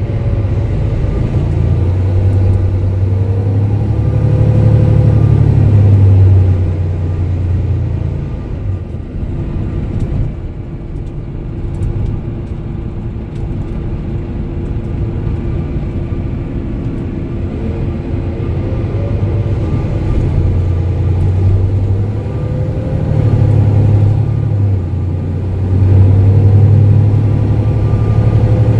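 Mercedes-Benz OM470 inline-six diesel engine of a Setra MultiClass 500 LE bus running under way, with a low drone that swells about four seconds in and again near the end. A thinner whine rises and falls above it.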